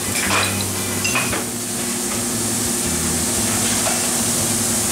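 Snack-bar kitchen din: a steady sizzling hiss of deep-fat fryers over a steady low hum, with a couple of short clicks in the first second or so as a beer bottle is opened with a bottle opener.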